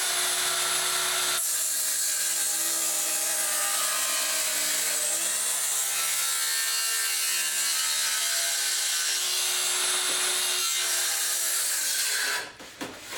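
Festool HKC 55 cordless track saw cutting a compound bevel through wood along its guide rail, the blade running steadily under load for about twelve seconds, then stopping near the end.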